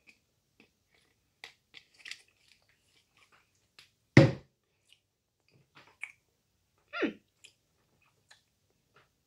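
A person chewing a dry peanut butter cookie with the mouth, making scattered soft smacks and crunches. There is one louder sudden sound about four seconds in and a short vocal sound, falling in pitch, about seven seconds in.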